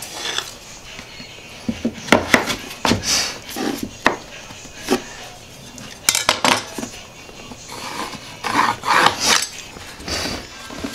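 Laminate flooring planks clacking, knocking and scraping against one another as they are handled and fitted together, in irregular hard knocks about a second apart.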